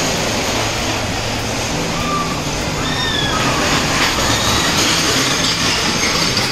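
Steel roller coaster running on its track: a steady rushing rumble with a low hum under it, and a few faint short high squeals.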